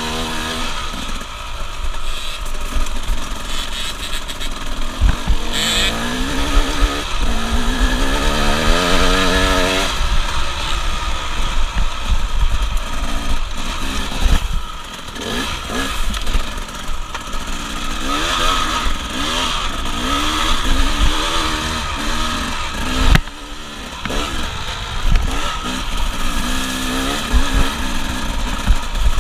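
Dirt bike engine under way, revving up and down as the rider accelerates and shifts, its pitch climbing in repeated rising sweeps. The engine note drops off briefly about three-quarters of the way through, then picks up again.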